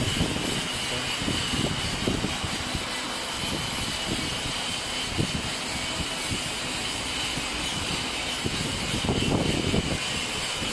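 Electric automatic dough divider running: a steady mechanical hum with a constant high whine and irregular low knocks.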